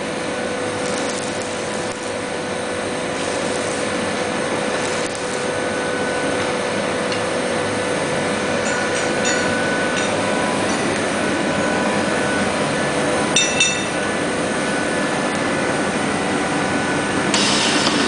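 160 kW medium-frequency induction forging furnace running under load while heating a steel bar: a steady hum and hiss with a few steady tones, growing slightly louder. A brief metallic clinking comes about 13 seconds in, and a burst of hiss near the end.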